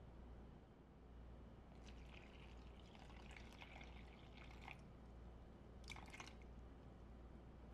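Water poured from a glass measuring jug into a bowl of flour: a faint trickling pour lasting about three seconds, then a short second pour about a second later.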